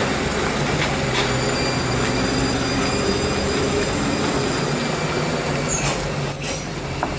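Heavy cargo truck's diesel engine running steadily at low speed on a steep grade, a continuous low hum under a broad mechanical noise.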